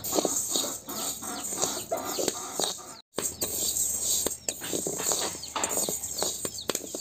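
Steel spoon scraping and stirring dry raw rice grains in a kadhai as the rice is dry-roasted, with chickens clucking and calling throughout. The sound breaks off briefly about three seconds in.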